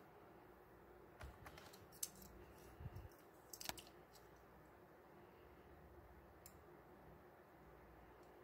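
Faint clicks and taps of a small die-cast toy car being picked up off plastic blister packs. A cluster of short clicks falls between about one and four seconds in.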